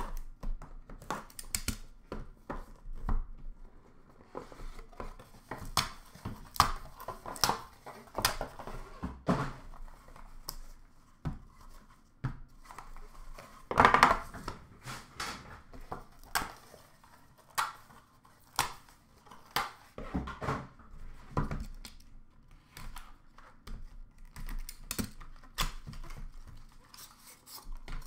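A sealed Leaf Ultimate hockey card box being opened by hand: plastic wrap torn and crinkled, cardboard and plastic packaging scraped, clicked and set down in a steady run of small handling noises. The loudest clatter comes about halfway through, as the box's outer case is lifted off.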